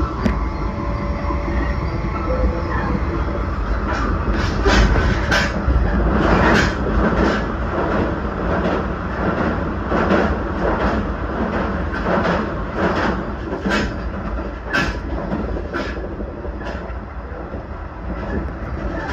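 JR Central 383 series limited express electric train running at speed, a continuous low rumble with irregular sharp clacks of the wheels, thickest through the middle.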